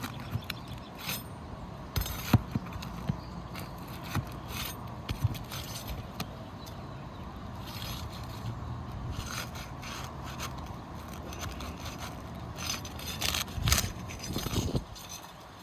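Asphalt roof shingles being worked loose: irregular scraping with scattered sharp clicks and knocks over a steady low rumble.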